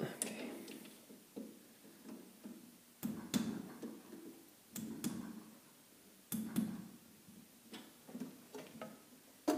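Metal parts of a lathe's three-jaw chuck and chuck key being handled by hand: a dozen or so separate short knocks and clinks, each with a brief ring, about one every second.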